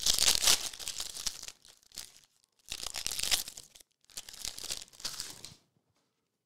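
Foil wrapper of a 2022 Chronicles baseball card pack being torn open and crinkled in the hands, in three bursts of crinkling.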